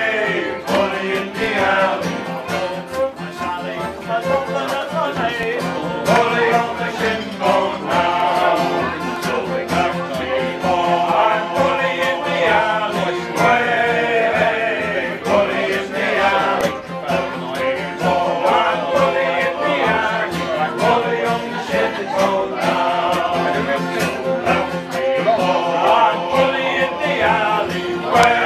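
A men's shanty group singing together, accompanied by acoustic guitar and fiddle.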